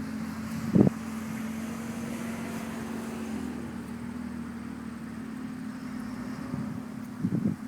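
A steady low hum, with a single sharp knock about a second in and a few short knocks near the end.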